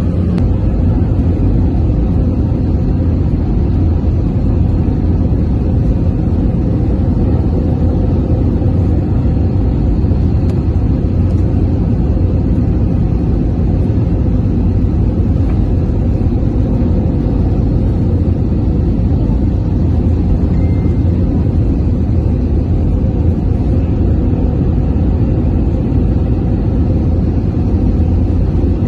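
Jet airliner cabin noise on final approach: a steady, low rumble of the engines and rushing air, heard from a window seat beside the wing.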